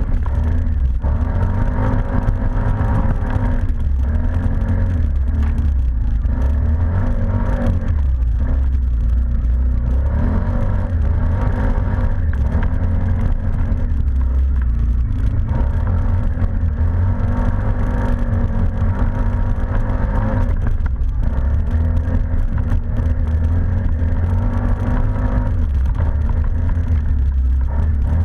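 ATV engine running as the quad is ridden, its pitch rising and falling repeatedly with the throttle over a heavy low rumble.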